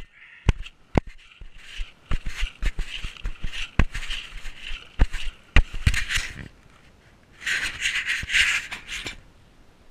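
Camera handling noise: a string of sharp knocks and clicks mixed with scraping and rustling as an action camera is moved and turned by hand. A longer burst of rustling comes late on, then it settles.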